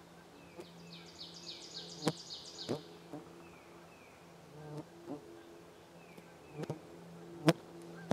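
An insect buzzing near the microphone, a steady low drone. A songbird's fast high trill comes about a second in, and a few sharp clicks stand out, the loudest near the end.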